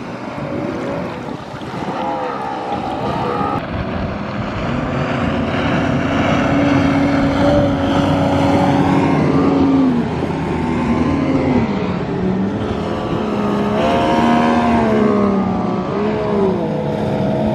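Duck boat motor running hard on the water, its engine note holding steady, then dropping and climbing again a few times as the throttle changes.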